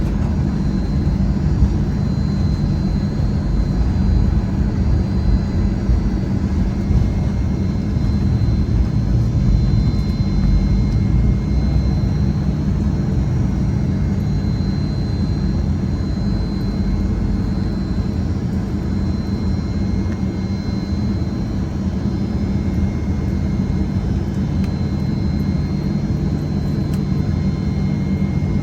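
CFM56 jet engines and airframe of a Boeing 737-900 heard from inside the cabin: a steady, loud low rumble with a faint high whine running through it.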